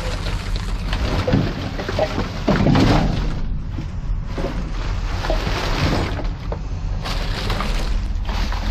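Plastic packaging, bubble wrap and plastic cups rustling and crinkling as they are pushed around by hand, with a few knocks and a louder rustle a little before the middle. A steady low rumble runs underneath.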